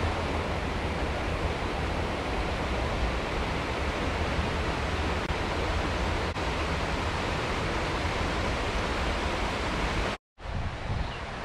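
Steady rush of water from a rocky stream tumbling over stones and a small waterfall. It cuts out about ten seconds in, and after a brief silence a different outdoor background with some low rumble begins.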